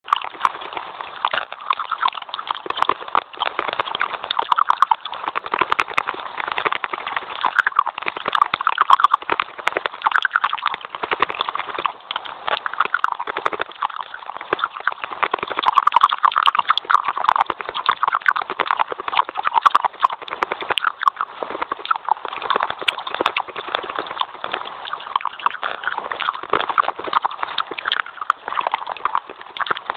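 Rapid, continuous crunching and crackling of dry white clay sticks being bitten and chewed close to a clip-on microphone, a dense run of sharp cracks.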